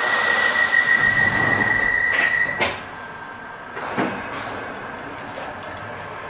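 Doors of a London Underground 1973 Stock car closing at a station. A steady high tone sounds, then the doors shut with a sharp knock about two and a half seconds in and the station noise drops away. A second clunk follows a second or so later.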